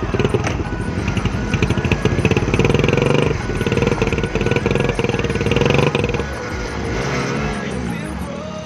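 Motorcycle engines running hard and revving in a tug of war: a Royal Enfield Bullet's single-cylinder engine pulling against two smaller commuter bikes. The engine sound eases after about six seconds, with background music underneath.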